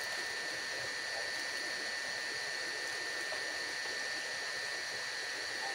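Steady night ambience: the even rushing hiss of a river, with a constant high drone of insects on two pitches.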